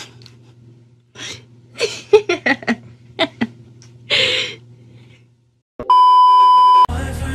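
A loud, steady test-tone beep lasting about a second, the kind that goes with TV colour bars, cutting off sharply near the end. Before it there are a few short vocal sounds over a low hum.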